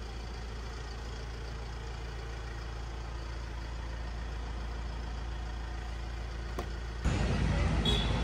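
Isuzu Elf Giga minibus engine idling steadily, a low even hum, while it runs the cabin air-conditioning. About seven seconds in, the sound cuts suddenly to louder, noisier outdoor background.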